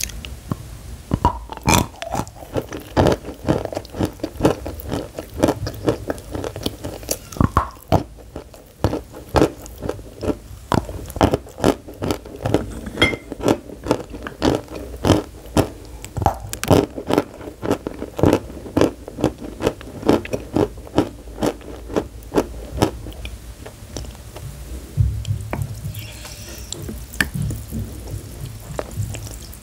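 Close-miked biting and chewing of pressed white chalk sticks: crisp, dry crunches, two or three a second, as the chalk breaks between the teeth.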